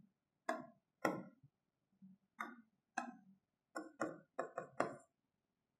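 Stylus tapping and clicking on the glass of an interactive display while a menu is picked and an equation is written: about nine short, faint taps, irregularly spaced and closer together in the second half.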